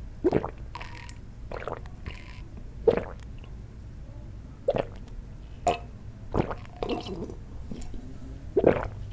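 Gulping makgeolli from a metal makgeolli bowl: a series of wet swallows, one every second or two.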